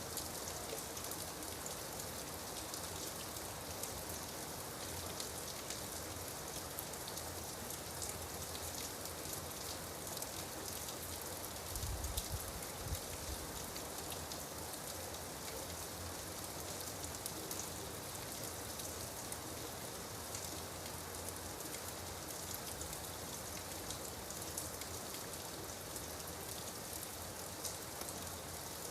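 Steady rain falling: an even hiss with many distinct drop hits. A brief low thump comes about twelve seconds in.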